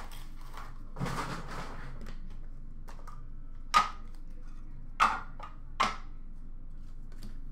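Hands handling a card box and hard clear plastic cases: a short rustle of packaging about a second in, then three sharp plastic clicks as the cases are handled and set down.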